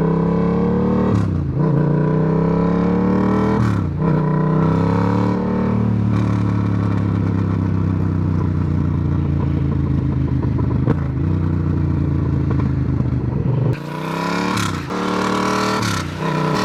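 Yamaha MT-07's parallel-twin engine running with the muffler removed (straight-piped): the engine note rises through several gears with a drop at each shift, holds steady, then comes off the throttle near the end with short blips. Off the throttle the straight pipe gives the rattly, tinny sound the rider disliked.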